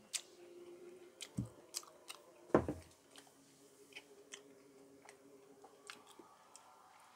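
A man chewing a bite of Jamaican beef roti with soft mouth clicks and smacks, and one louder short mouth sound about two and a half seconds in.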